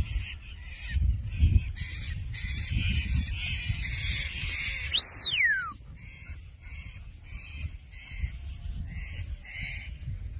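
A shepherd's whistle command to a working kelpie, about five seconds in: one loud clear note that sweeps up, then slides steeply down. Birds chirp over and over in the background, with a low rumble of wind on the microphone.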